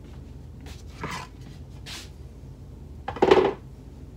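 A small wooden paddle board is picked up off a cutting mat and put down. There are a few light rubs and knocks, and the loudest is a clattering knock a little past three seconds in.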